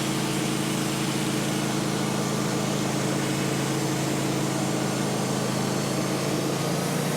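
Gasoline engine of a portable band sawmill running at a steady speed, its note holding level.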